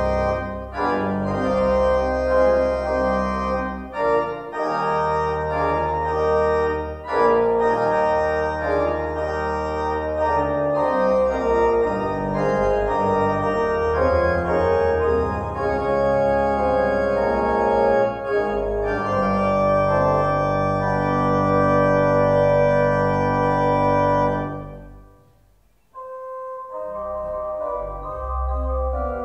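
Church organ playing sustained chords on the manuals over low pedal bass notes. About 24 seconds in, a held chord is released and dies away; after a brief pause a softer passage begins.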